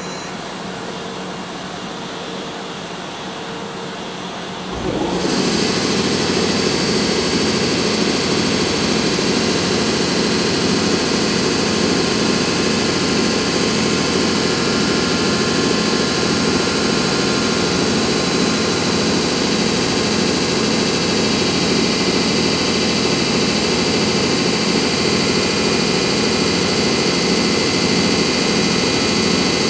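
Blowers of a double-headed pair of EF64 electric locomotives starting up about five seconds in: a low steady hum gives way suddenly to a loud, steady whir with a high whine running through it, while the locomotives stand still.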